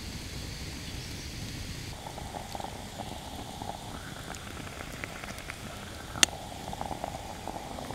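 Wood campfire crackling with scattered small pops and one sharp pop about six seconds in. From about two seconds in, a stovetop moka pot sitting on the fire bubbles and gurgles as it comes to the boil.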